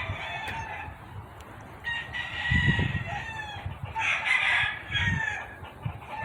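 A rooster crowing twice, each crow a long pitched call with a falling end.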